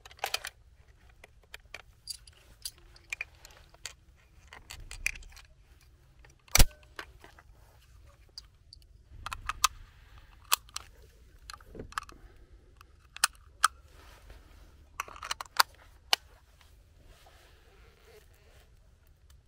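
Sharp metallic clicks and snaps as a hunting rifle and its detachable box magazine are handled and cartridges are pressed into the magazine, with one much louder snap about six and a half seconds in.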